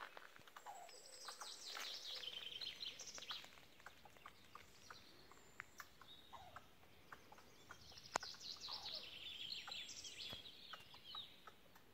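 A songbird singing faintly: two high, rapid song phrases of about two to three seconds each, one starting about a second in and another about eight seconds in. A single sharp click comes just before the second phrase.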